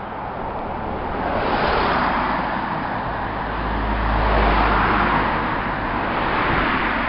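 Road traffic noise from passing cars, heard through a compact camera's built-in microphone. The noise swells about a second and a half in and again around four to five seconds in, where a low rumble comes up.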